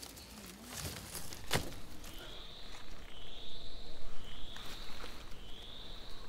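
A single sharp knock about a second and a half in, then a high call repeated about once a second from a wild creature, each note slightly arched and a little over half a second long.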